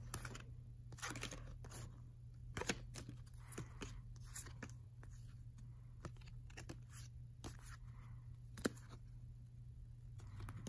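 Baseball cards being flipped through by hand: irregular soft clicks and slides of card stock as they are pulled off a stack, with one sharper snap about two-thirds of the way through. A steady low hum runs underneath.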